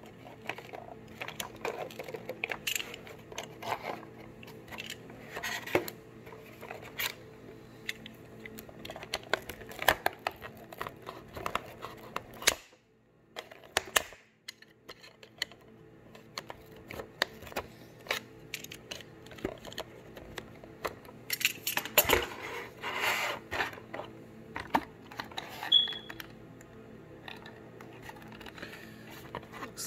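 Unboxing a cardboard box with a clear plastic window: a utility knife cuts through the box bottom, then the packaging is handled with a run of small clicks, taps and scrapes of cardboard and plastic. A short lull comes about halfway, and a longer stretch of rustling and scraping comes later on.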